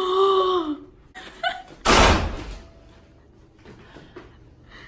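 A heavy hotel room door swinging shut and closing with a single loud thud about two seconds in.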